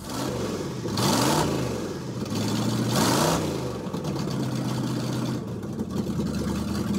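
An old conversion van's engine, just got running again, revved twice, about one and three seconds in, then idling steadily.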